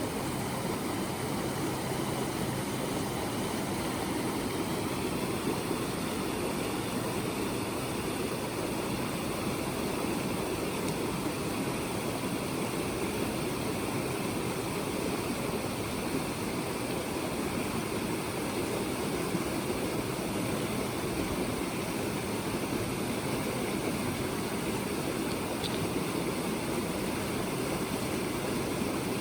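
Steady rushing of running water, a rainforest stream or waterfall, with no pauses.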